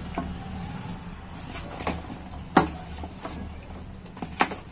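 Raw chicken being mixed with yogurt and spices in a vessel: scattered knocks, the sharpest about two and a half seconds in, over a low steady hum.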